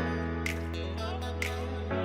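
Background music: sustained chords over a steady bass note, with a soft percussive hit about once a second.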